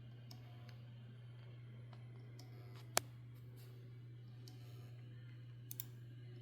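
A 12 TB hard drive that is not working, making irregular sharp clicks over a steady low hum. One click about halfway through is much louder, and two come close together near the end.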